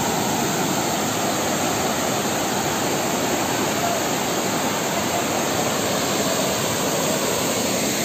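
Waterfall: water rushing over rock slabs into a plunge pool, a steady, unbroken rushing noise.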